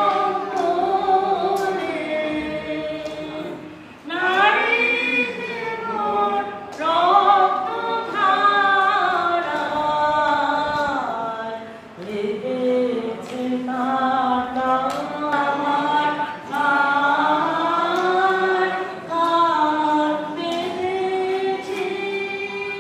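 Vocal music: several voices singing together like a choir, in long sung phrases with short breaks about four and twelve seconds in.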